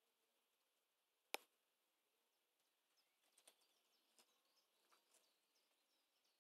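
Very faint: one sharp click a little over a second in, then light scratches and ticks from a rat foraging among the debris right by the microphone.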